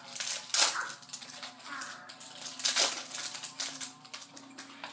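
Foil wrapper of a hockey trading-card pack being torn open and crinkled, a run of sharp crackles and rustles, loudest about half a second in and again near three seconds.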